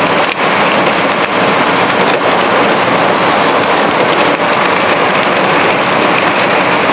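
Heavy rain falling steadily, a dense even hiss with a few sharp ticks of drops or stones striking a surface.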